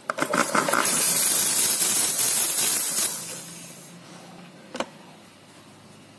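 Espresso machine steam wand being purged: it spits and sputters for about a second as condensed water is blown out, then gives a loud, steady hiss of steam that dies away over the following second. A single click comes shortly before the end.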